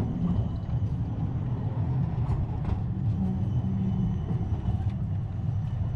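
Low, steady rumble of a city tram and street traffic, with a few faint ticks.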